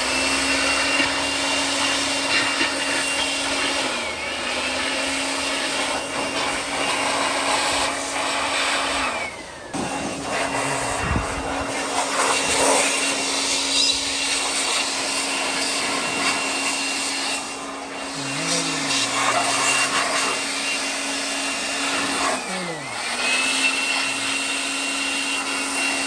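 Handheld electric air blower running with a steady motor whine and rush of air, blowing packed straw and dust out of the cooling fins of an Eicher 485's air-cooled three-cylinder engine. The motor dips in speed three times, about 4 s in, about 10 s in where it briefly spins down, and near the end.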